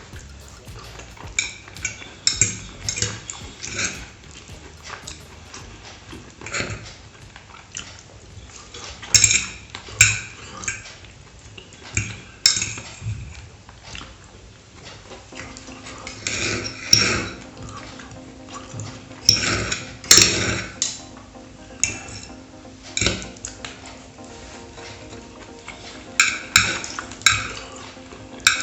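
Cutlery clinking and scraping against a plate in irregular bursts, close to the microphone, as food is cut and eaten.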